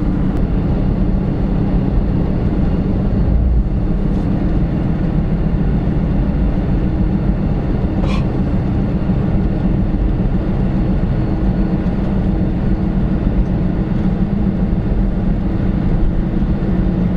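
Steady driving noise from inside a Toyota 4Runner: its V6 engine and the road noise of the tyres running together at a constant pace, with one sharp click about eight seconds in.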